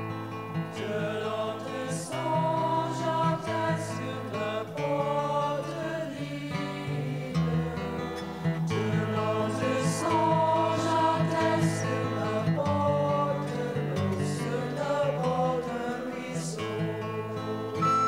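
Several voices singing an old French boat song in sustained, held notes.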